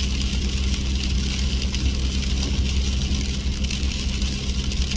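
A vehicle engine idling steadily, with freezing rain hissing and ticking down over it.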